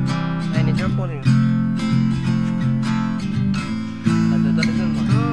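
Music: strummed acoustic guitar chords, changing every second or so.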